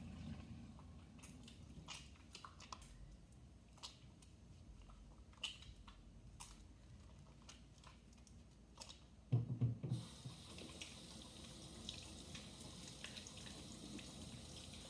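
Soapy hands rubbing together, with faint wet clicks and squelches. About nine seconds in there is a knock, and a kitchen tap runs steadily into a stainless steel sink as the hands are rinsed.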